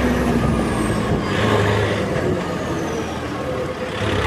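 Yanmar 1160SR turbo tractor's diesel engine running under way through a straight-through exhaust; the engine note eases slightly about three seconds in and picks up again near the end.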